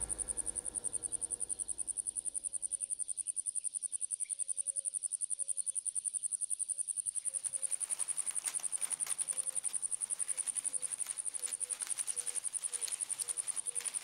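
An insect trilling steadily: a high-pitched, rapid, evenly pulsed buzz that does not change. Faint short low notes repeat in a row beneath it.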